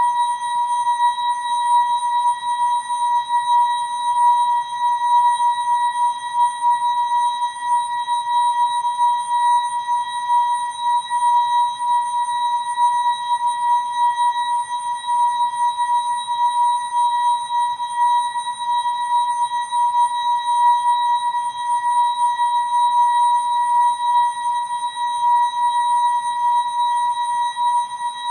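The ASKfm notification sound effect, slowed and time-stretched into one held, unchanging high tone with fainter overtones above it, wavering slightly in loudness.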